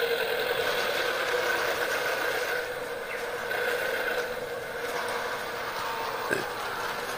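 Battery-powered toy trains running on plastic track: a steady whine of small motors and gears. A light knock comes about six seconds in.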